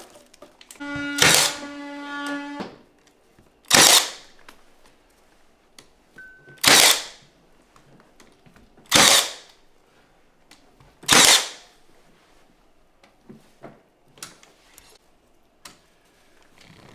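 A power tool gives a brief pitched whine, then a pneumatic nailer fires four times, about two and a half seconds apart, each shot a sharp crack with a short hiss.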